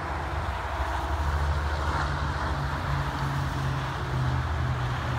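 Diesel semi truck passing on a highway: a low, steady engine drone that gets louder about a second in, over the steady hiss of traffic tyres.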